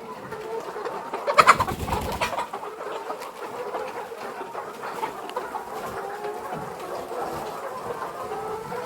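A flock of young laying-hen pullets clucking and calling softly together, many short wavering calls overlapping. A louder rustling clatter comes about a second and a half in.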